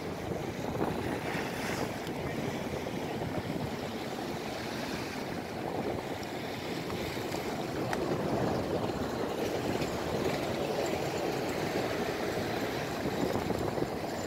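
Small waves washing against a stone quay wall, a steady wash that swells and ebbs every few seconds.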